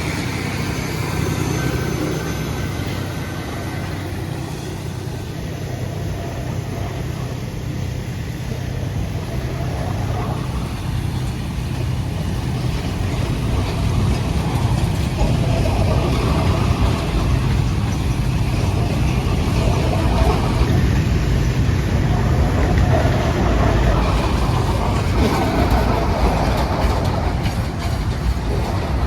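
A pair of GE U10B diesel-electric locomotives working hard up a grade, their engines a steady low drone that grows gradually louder as they approach.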